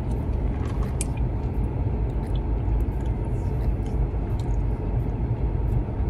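Steady low rumble inside a car cabin, with a sip of iced coffee through a straw near the start and a few faint clicks.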